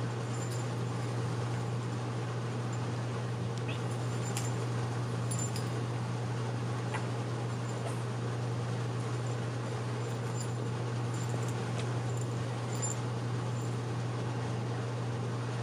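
A steady low hum over an even hiss, with a few faint ticks and scuffs from two kittens play-wrestling on a denim-covered lap.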